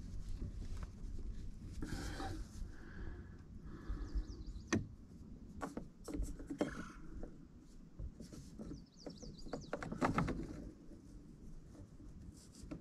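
PVC drain pipe and elbow fittings being handled and pushed together, with plastic rubbing and a few sharp clicks and knocks.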